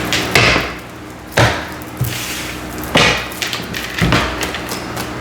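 Tarot cards being handled and laid down on a table: about five sharp taps and slaps, roughly one a second.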